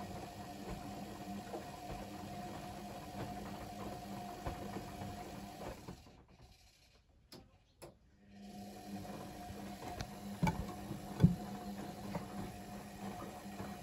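ATLANT 45Y82 front-loading washing machine in its main wash, the drum motor running with a steady hum as it tumbles the wet load. About six seconds in the motor stops for about two seconds, the pause between tumbling directions, then starts again. Two sharp taps follow, the second the loudest sound.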